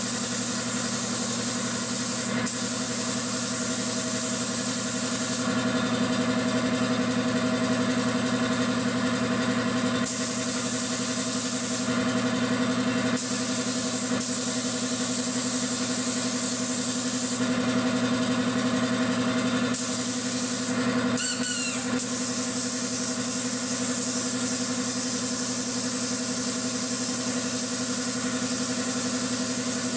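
Air compressor running steadily with a constant hum, under the hiss of compressed air from a gravity-feed spray gun spraying paint. The high hiss drops back and returns a few times as the spraying stops and starts.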